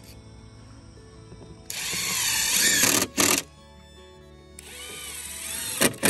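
Cordless drill driving screws into pine fence boards: a run of the motor a little under two seconds in, lasting over a second with a whine that wavers in pitch, then two short blips, and a second run near the end that rises in level. Background music plays throughout.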